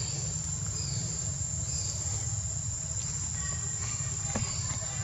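Steady, high-pitched drone of a forest insect chorus, with short falling chirps repeating about once a second, over a low steady rumble.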